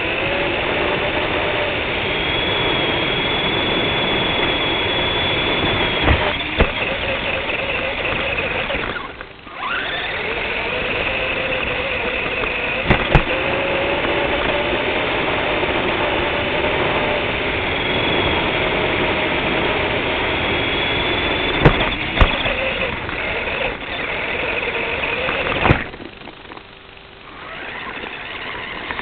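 Radio-controlled car driving hard, with a loud rushing noise and a motor whine that rises and falls with the throttle. A few sharp knocks are heard, the sound cuts out briefly about nine seconds in, and it drops away near the end.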